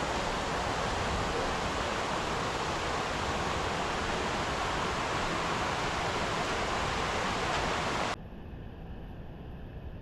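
Waterfall: steady rush of falling water. About eight seconds in it cuts off abruptly and gives way to a quieter, duller noise.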